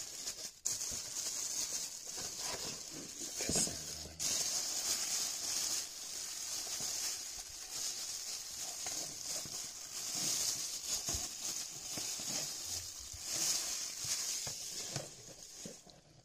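Thin plastic mailer bag crinkling and rustling as hands pull it open and unwrap it, with small clicks of plastic packaging being handled.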